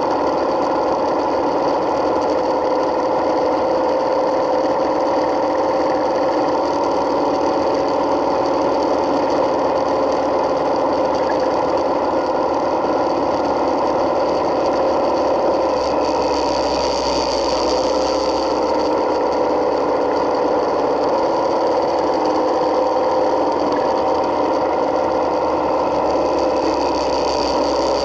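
Yamaha Midnight Star 1900's air-cooled V-twin engine running steadily under way, mixed with wind and road noise. The hiss rises briefly a little past halfway.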